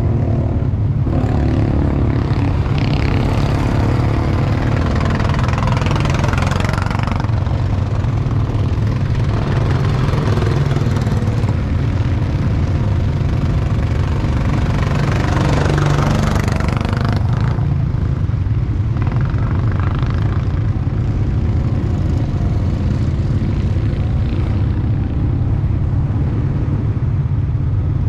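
Go-kart engines running, a steady low drone with the engine note rising and falling several times as the karts speed up and slow down.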